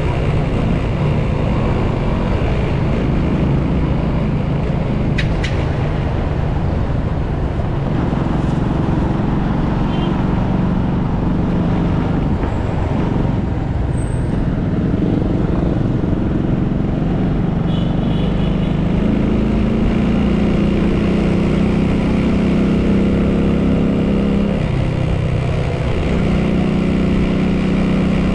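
Motorcycle engine running steadily while riding through city traffic, its note shifting up and down with the throttle, mixed with the sound of surrounding road traffic.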